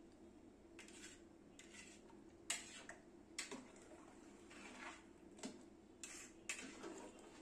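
A metal ladle scrapes and taps against the inside of an aluminium cooking pot as a thick curry is stirred. The short strokes come unevenly, about one a second, over a faint steady hum.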